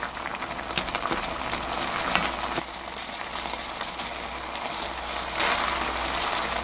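Thick red braising sauce of mackerel and aged kimchi bubbling and crackling hard in a pan on high heat as it reduces, with a wooden spoon now and then scraping along the bottom of the pan.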